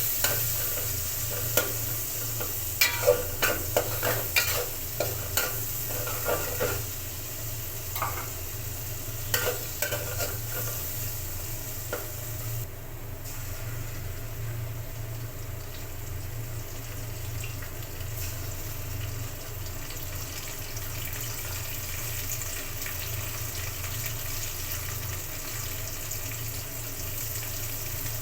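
Food frying and sizzling in hot oil in a pan while a spatula stirs it. The spatula knocks and scrapes against the pan repeatedly during the first twelve seconds or so; after that only the steady sizzle goes on.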